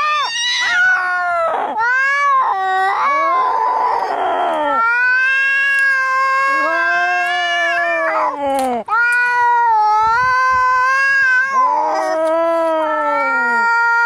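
Cats caterwauling in a fight: long, wavering yowls one after another, with a harsh hiss about three to four seconds in.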